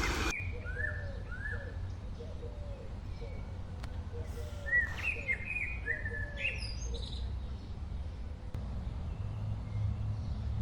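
Small birds chirping: many short, downward-sweeping chirps, with a steady low rumble underneath.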